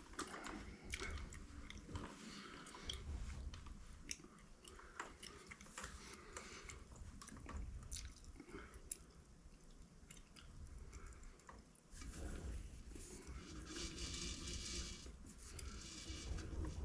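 Irregular small clicks, knocks and scrapes of metal tools and parts being handled at a lathe while the cutting tool and tool holder are set up.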